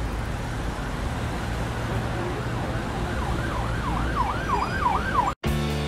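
Steady street traffic rumble, joined about halfway through by an emergency-vehicle siren in a fast up-and-down yelp, about three sweeps a second. It cuts off suddenly shortly before the end, and music begins.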